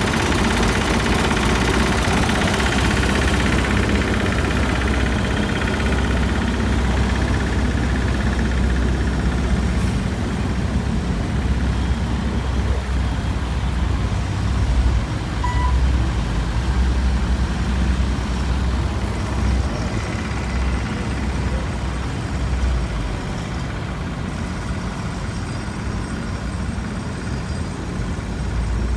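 Heavy diesel engines of construction vehicles running steadily with a low rumble; a hissing noise fades out over the first several seconds.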